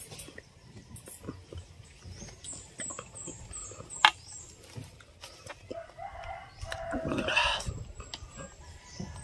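A rooster crows once, about two-thirds of the way through. Before it come a short run of high, falling chirps from a small bird and a single sharp click about four seconds in.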